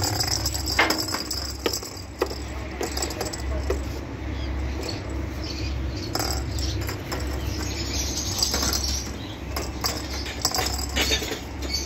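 Kittens batting a hollow plastic toy ball about on a hard stone floor: scattered light clicks and knocks, over a steady low hum.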